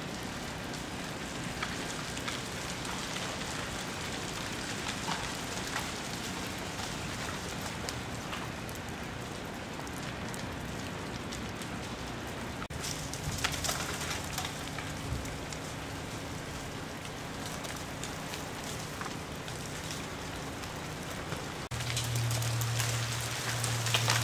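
Ice falling from ice-coated trees as it thaws: a steady, rain-like clatter of many small hits. Near the end the clatter grows louder and a low hum comes in.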